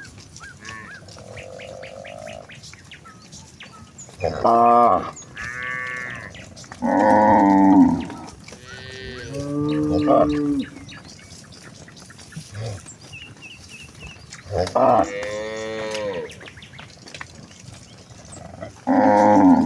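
Cattle mooing repeatedly: about six separate calls from the herd, each one to two seconds long, some deeper and some higher-pitched.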